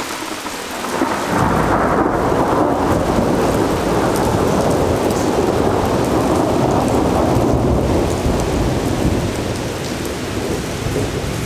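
A long roll of thunder swells in about a second in and rumbles on, slowly fading, over the steady hiss of heavy rain.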